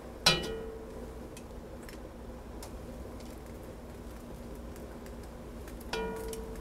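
Metal tongs clank twice against an enameled cast-iron Dutch oven, just after the start and again near the end, each strike ringing briefly. Faint scattered ticks fall between the two strikes.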